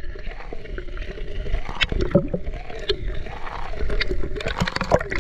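Water sloshing and splashing around a waterproof camera held half-submerged at the waterline, with a wavering hum under the wash and many sharp splashes and clicks.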